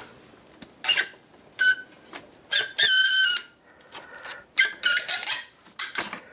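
Plastic AC desiccant cartridge squeaking as it is gripped with pliers and worked out of the receiver-drier bore. There are about five high squeals, the longest lasting nearly a second around the middle.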